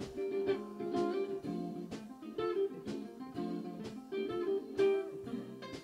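Background music on guitar: plucked notes in a steady, lively rhythm.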